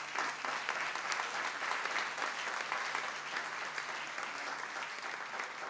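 Audience applauding, a steady round of many hands clapping.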